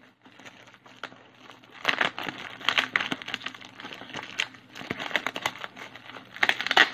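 Plastic courier mailer bag crinkling as it is pulled open by hand, in irregular crackly bursts from about two seconds in, loudest just before the end.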